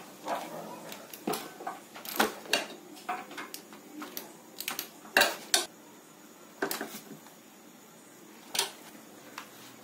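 Irregular metallic clinks and knocks of a socket wrench and sockets worked against the bolts and metal underside of a scooter engine, with the loudest clinks about two and five seconds in and fewer near the end.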